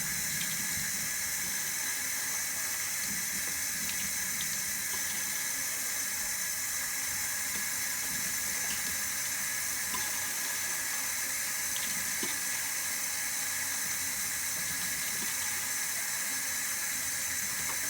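Water running steadily from a tap while a cup of water is filled and poured over a dog to wet its coat for a bath.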